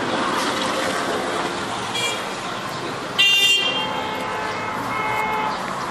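Street traffic noise with a short vehicle horn toot about three seconds in, the loudest moment, and fainter held horn-like tones near the end.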